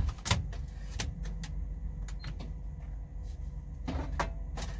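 Scattered light knocks and clicks of a food container being placed into a small cab-mounted microwave, with a cluster of clicks near the end, over a steady low hum.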